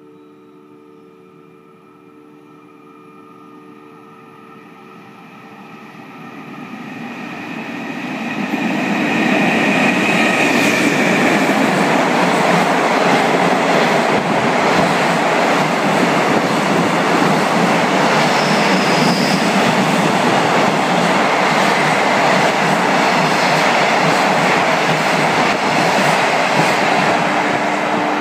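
An EF510 electric locomotive hauling a container freight train passes through a station at speed. The rumble builds over about four seconds as it approaches, then the container wagons go by with a steady, loud noise of wheels on the rails, easing a little near the end.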